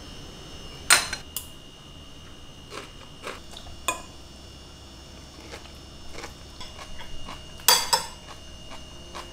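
Metal forks and spoons clinking and scraping against ceramic plates and a serving dish while food is served, in scattered separate clinks; the loudest come about a second in and again near the end.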